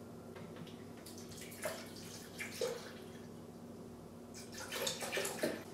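Leftover Coca-Cola poured from a two-liter bottle into a large measuring cup: short splashes of liquid, heaviest in a cluster near the end.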